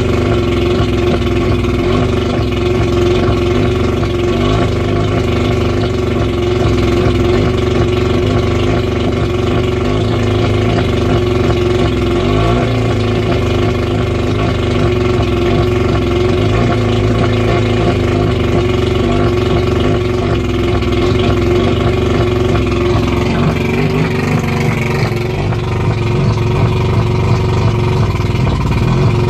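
1989 Mercury 100 two-stroke outboard motor running steadily at a fast idle of about 1200–1400 RPM. Its tone shifts slightly toward the end.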